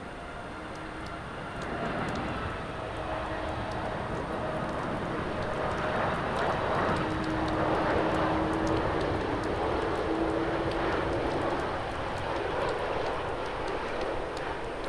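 Boeing 747-8 on short final, its four GEnx-2B turbofans giving a jet rumble with a steady whine on top. It grows louder about two seconds in, is loudest in the middle as it passes, then eases slightly.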